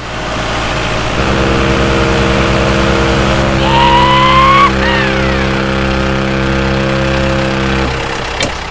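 An engine running steadily and loudly, with a whistle-like tone that rises and then falls about halfway through.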